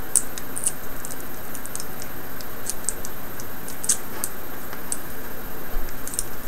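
Scattered light clicks and ticks of a Dell Inspiron E1505 laptop screen's parts being handled and pried loose by hand, over a steady background hiss.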